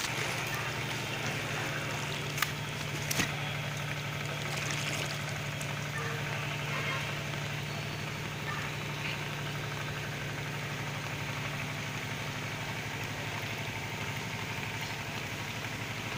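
An engine running steadily at idle, an even low hum with a faint hiss behind it. Two short clicks come about two and three seconds in.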